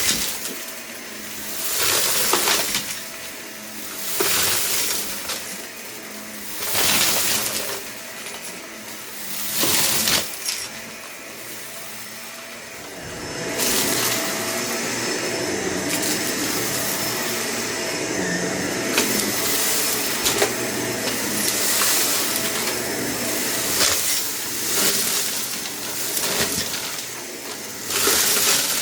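Vacuum cleaner running with a steady motor hum, its noise surging every two to three seconds in the first half as it is pushed back and forth. From about halfway it turns to a continuous louder rush with many small clicks and rattles: hard bits of a test mess being sucked up.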